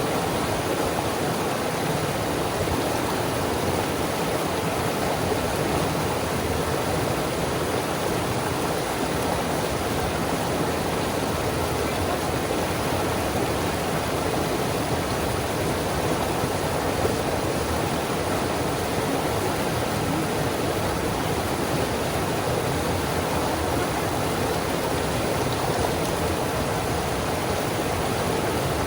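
A river running over rapids: a steady, unbroken rush of water.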